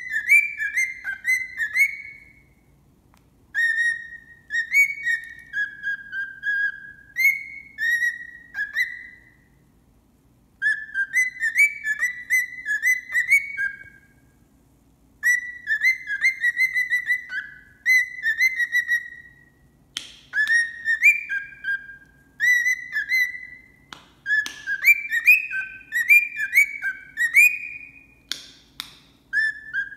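Cockatiel whistling in phrases of short, quickly rising and falling chirpy notes, with pauses of a second or two between phrases. A few sharp clicks come in the second half.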